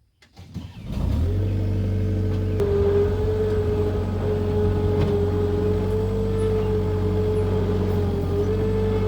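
Skid steer engine running steadily, coming in about a second in with a steady hum, its pitch stepping up slightly a little later.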